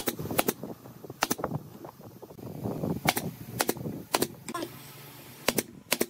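Nail gun firing nails into pine boards: a string of sharp cracks, several coming in quick pairs, spread over a few seconds.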